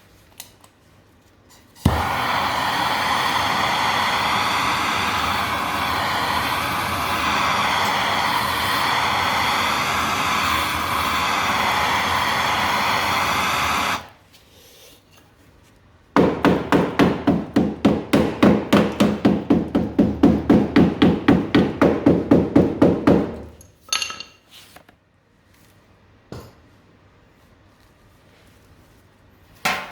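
A power tool runs steadily for about twelve seconds, its pitch wavering under load as it cuts away rusted car body metal. After a short pause comes a fast, even run of strikes, about four or five a second for about seven seconds, then a couple of single knocks.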